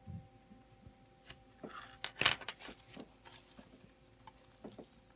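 Small clicks and light scraping as a tool and hands work a plastic model freight car on a table, with a brief louder rustle about two seconds in. A faint steady hum runs underneath.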